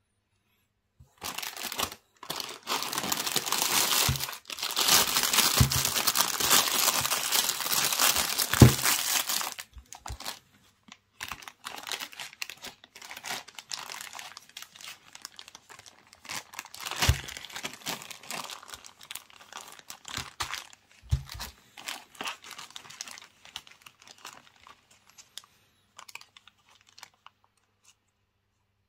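Clear plastic packaging crinkling and crackling as it is handled and pulled open, dense and loud for the first several seconds, then thinning to scattered crackles. A few dull thumps sound among the crinkling.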